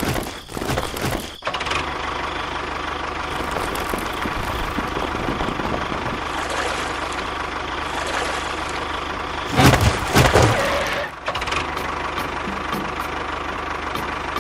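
Tractor engine sound running steadily at idle, with a louder, rougher stretch about ten seconds in.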